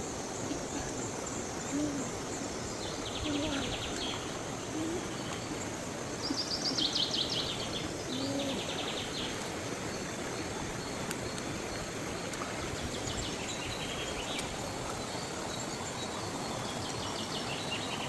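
Forest stream running steadily over rocks while wild birds call: several bursts of rapid high trills and a few short low hoots in the first half.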